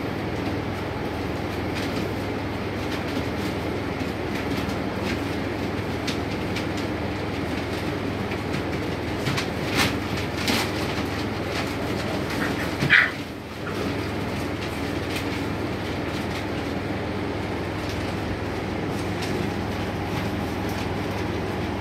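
Puppies scrambling on spread newspaper: paper rustling and claws clicking over a steady low hum, with one brief high squeak about thirteen seconds in.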